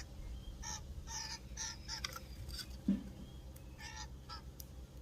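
Common grackles calling: a run of about eight short, harsh, nasal calls at uneven intervals. A brief low thump comes about three seconds in.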